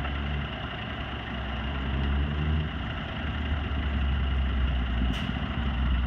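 Fire engine's diesel engine idling, a steady low rumble, with a short sharp click about five seconds in.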